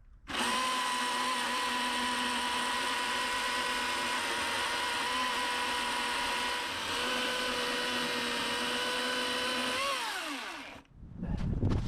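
Milwaukee M18 Fuel battery chainsaw running flat out with a steady electric whine for about ten seconds while sawing a beech log into firewood, the pitch sagging slightly under load. Then the trigger is released and the motor winds down with a falling whine.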